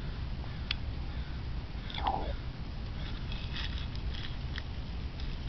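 Light clicks and rustles of Froot Loops cereal pieces being stirred by a small hand in a plastic bowl, mostly between about three and four and a half seconds in, over a steady low rumble. A brief short sound comes about two seconds in.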